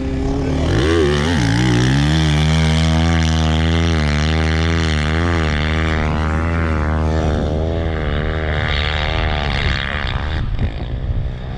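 Off-road vehicle engine revving up about a second in, then held at high revs with a pitch that wavers up and down. It drops away about ten and a half seconds in.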